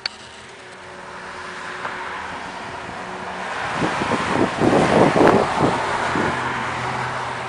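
Loud rushing rumble with no clear pitch, the kind posted as a 'strange sound from the sky': it swells over several seconds, peaks with a fluttering surge about five seconds in, then slowly fades.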